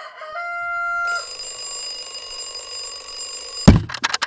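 Alarm clock sound effect: a bright, steady alarm tone, then near the end a bell alarm clock ringing in a fast run of clangs, the first clang the loudest.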